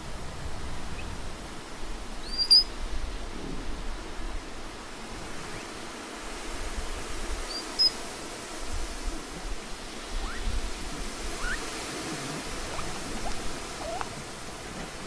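Steady outdoor hiss with two short, sharp high chirps, about two and a half and eight seconds in, and a few fainter rising squeaks near the end.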